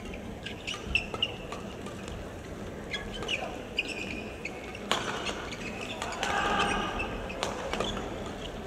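Men's doubles badminton rally: rackets crack against the shuttlecock at irregular intervals, and court shoes squeak in short chirps on the floor as the players lunge and shuffle.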